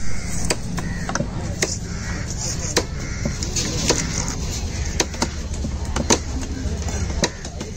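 Heavy knife chopping and scraping a fish on a wooden log chopping block: sharp knocks at irregular intervals, one or two a second, over a low steady hum that stops near the end.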